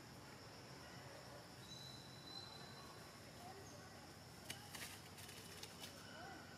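Quiet outdoor forest ambience with a faint steady insect hum and a short high thin whistle about two seconds in. A few soft clicks come about two-thirds of the way through and again near the end.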